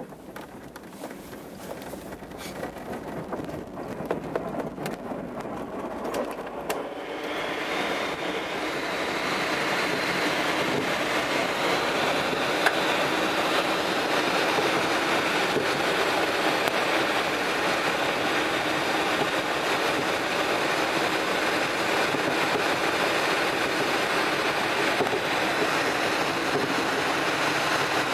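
Glider launching and climbing: clicks and rattles during the ground roll, then rushing airflow noise that builds over the first eight to ten seconds and then holds steady.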